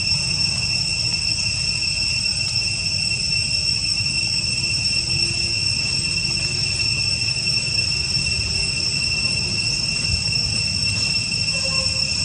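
Insects droning in a steady, unbroken high-pitched chorus, with a low rumble of noise underneath.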